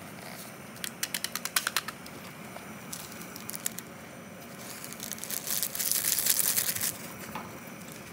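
Plastic instant-ramyun seasoning packets crinkling and being torn open: a quick run of crackles about a second in, then a longer rustling crinkle from about five to seven seconds in as the vegetable-flake packet is handled over the pot.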